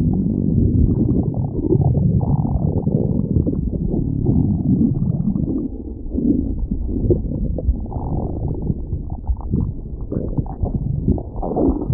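A stomach growling: a long, continuous, low gurgling rumble that eases briefly about six seconds in, then swells again.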